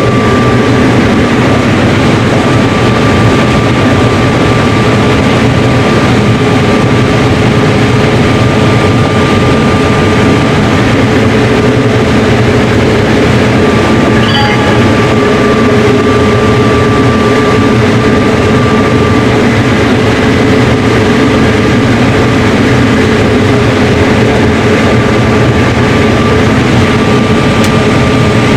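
Combine harvester running steadily while harvesting corn, with a constant whine over the engine sound.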